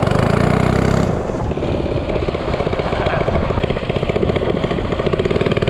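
Minibike's small engine running with a rapid, steady pulsing beat, easing slightly about a second in.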